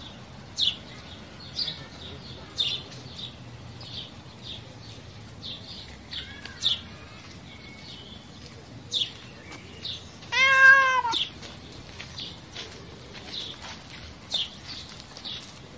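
A cat gives one drawn-out meow, rising and then falling in pitch, about two-thirds of the way through. Short high bird chirps come every second or so throughout.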